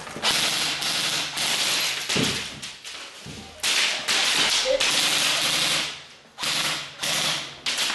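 Airsoft gun firing several full-auto bursts, a rapid clatter. The longest bursts run about two seconds each, and shorter ones come near the end.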